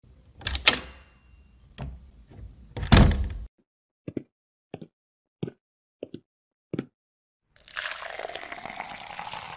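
Coffee-themed intro sound effects: a few clinks and knocks, the loudest about 3 s in, then five short, evenly spaced taps about two-thirds of a second apart. From about 7.5 s in, liquid is poured into a cup, the pitch of the pour rising as the cup fills.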